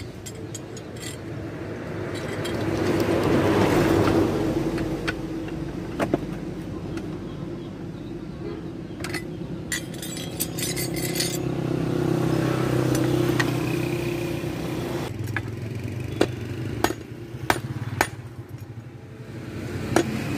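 A motor vehicle's engine swells and fades twice as it passes, with scattered light metallic clinks, most of them near the end.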